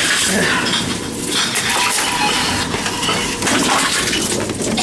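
Envipco CF-1500 reverse vending machines at work, with cans and bottles clinking and clattering over the machines' steady running.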